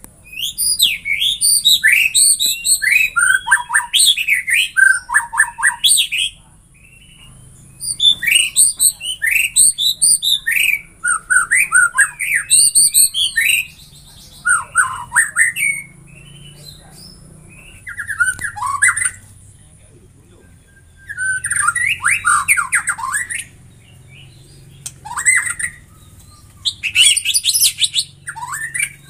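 White-rumped shama (murai batu) singing loud bursts of rapid, varied whistles and chattering notes. The song comes in phrases of one to six seconds, separated by short pauses.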